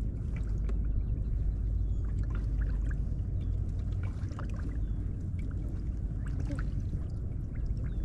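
Choppy river water lapping and splashing against the side of a small boat, with wind rumbling on the microphone.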